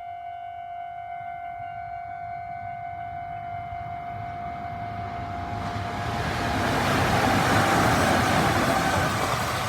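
Japanese level-crossing electronic warning alarm sounding its fast-tempo 'high-speed' tone, a steady pitched ring pulsing rapidly. From about five seconds in a train approaches and passes, growing loud and largely covering the alarm near the end.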